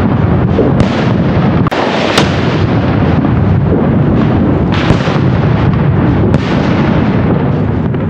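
Firecrackers going off, about five sharp separate cracks, over a steady, loud, low noise.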